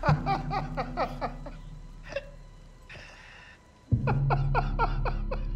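A man's fit of rapid laughter, short falling "ha"s about five a second, tailing off after about a second and a half, a breathy intake of air, then the laughter bursting back in loudly about four seconds in. A low steady hum underneath.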